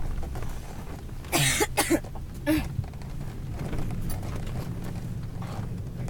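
A person coughing three times in quick succession, about a second and a half in, over the steady low drone of the SUV's engine heard inside the cabin.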